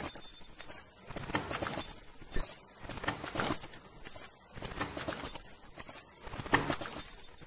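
Automatic face mask ear-loop welding machine running, its mechanism clicking and clacking several times a second in an uneven clatter.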